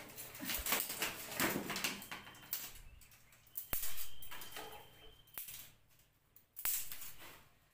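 Dry twigs rustling and cracking as they are handled and stuffed into a clay mud stove, busy crackling handling noise for the first two and a half seconds, then quieter with three sharp snaps spaced about a second and a half apart.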